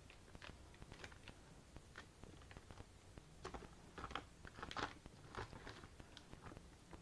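Plastic shrink-wrap on a bottle multipack crinkling and crackling in short irregular bursts as a kitten paws and scrambles at it, quiet at first and busiest about four to five seconds in.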